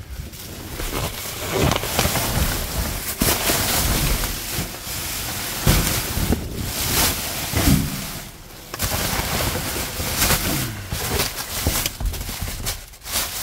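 Rummaging through a dumpster: rustling, scraping and knocks of bags, boxes and items being moved, with wind rumbling on the microphone.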